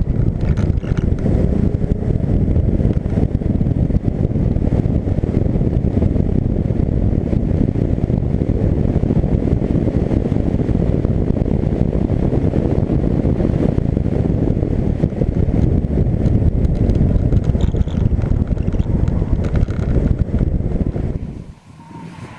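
Heavy wind rush on an outside-mounted camera microphone on a Porsche Cayman MkII at track speed, mixed with the car's flat-six engine running hard. The rushing noise drops away sharply near the end.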